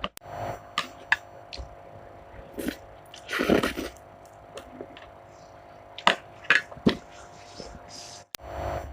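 A person eating spicy instant noodles close to the microphone: scattered short mouth sounds of slurping and chewing, with a louder breathy burst about three and a half seconds in and a few sharper ones around six to seven seconds.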